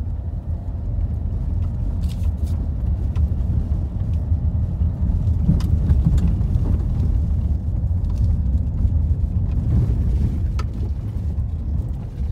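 Car cabin noise while driving over badly broken, potholed asphalt: a steady low rumble of tyres and suspension, with a few sharp knocks as the wheels hit cracks and holes.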